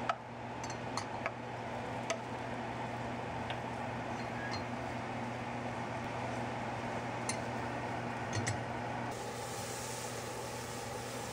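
Steady fan hum with a handful of light metallic clinks from the stainless saucepan of reduced balsamic vinegar. About nine seconds in a soft sizzling hiss comes in as butter foams in a hot pan.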